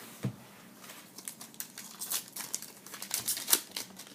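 Foil trading-card pack wrapper crinkling and tearing in a run of quick crackles, the loudest about three and a half seconds in.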